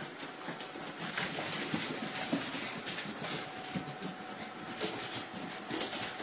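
Puppies' claws and paws scrabbling and clicking on a wooden floor as they scuffle and run: a busy, irregular patter of clicks and scuffs.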